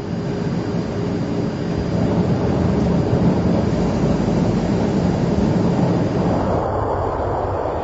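A loud rumbling roar of noise that builds up over the first couple of seconds and then holds steady.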